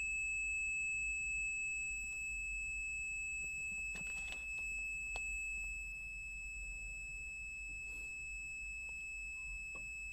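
HABOTEST HT121 pen-type multimeter's continuity buzzer giving one steady, unbroken high-pitched beep: the probes are in contact, reading below the meter's 50-ohm continuity threshold. A couple of faint clicks come about four and five seconds in.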